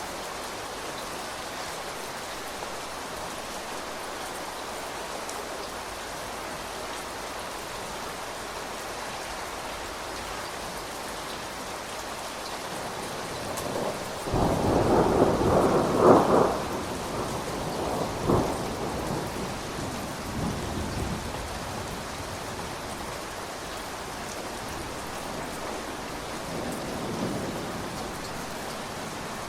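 Steady rain falling, with a loud clap of thunder about halfway through that rumbles on in a few weaker rolls before fading back under the rain.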